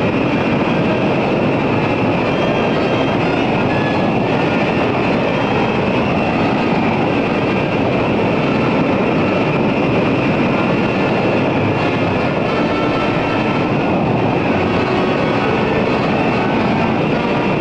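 Jet aircraft engines running steadily, an unbroken loud noise with a faint whine on top.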